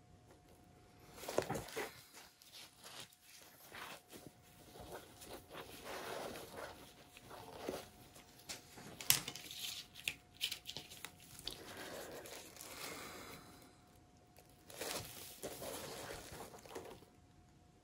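Irregular rustling, crinkling and light clicks of art supplies being handled, with a sharper click about nine seconds in. A faint steady hum runs underneath.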